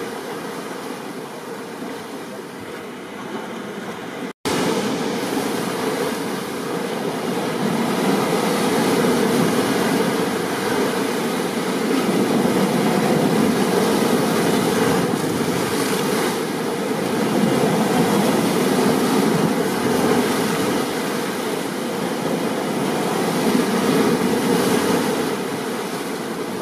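Steady rush of heavy rain and ocean surf in a storm, swelling and easing every few seconds. It cuts out for an instant about four seconds in, then comes back louder.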